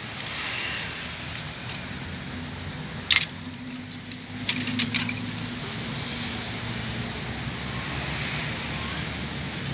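Steady low hum of road traffic, with a few sharp metallic clinks about three seconds in and a quick cluster of them around five seconds.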